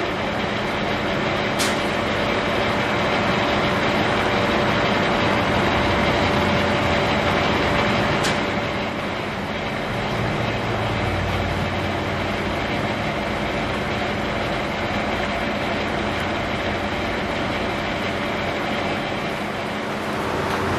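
Metal lathe running steadily, its chuck spinning a round bar while a drill held in the tailstock chuck bores into the bar's end. The running noise changes slightly about eight seconds in.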